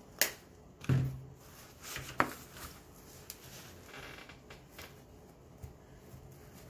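Artificial flower stems handled and worked into a floral arrangement: two sharp clicks about two seconds apart, a dull thump on the table between them, then light rustling of the silk flowers and leaves.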